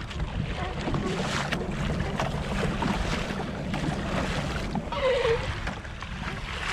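Wind rushing over the microphone, with water slapping and splashing against a pedal fishing kayak's hull on choppy sea. A brief falling tone sounds about five seconds in.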